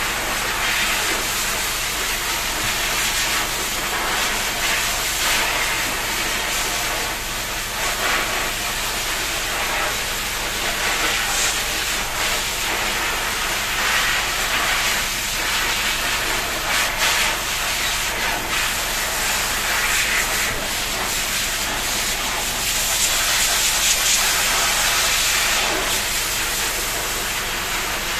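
Water spraying in a continuous hissing stream, as from a shower head, while a pet bird is given a shower.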